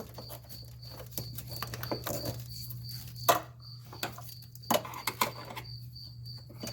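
Crickets chirping in a steady rhythm, about three chirps a second, over a steady low hum. A few sharp knocks and clicks cut in as the car's wiring harness and plastic connectors are handled, the loudest a little past three seconds in and twice near five seconds.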